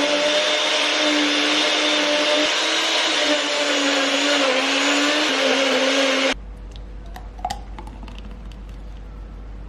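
Countertop blender running at high speed on a smoothie of frozen banana, spinach, blueberries and oat milk: a steady whir with a slightly wavering motor pitch. It cuts off abruptly about six seconds in, leaving a few faint clicks over a low hum.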